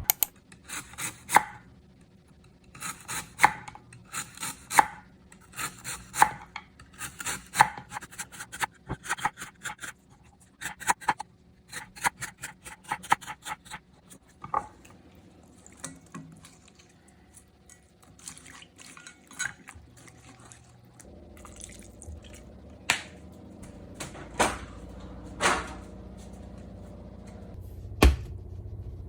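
Knife chopping on a cutting board in quick runs of strokes, one run every second or two. Later come scattered single knocks and kitchen clatter, and about two-thirds through a low steady hum starts.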